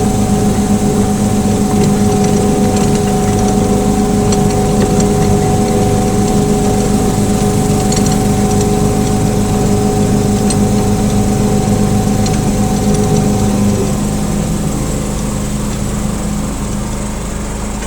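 Engine of a small 18-inch-gauge locomotive running steadily under way, with a steady hum. A little under fourteen seconds in, the engine eases off and the sound drops slightly.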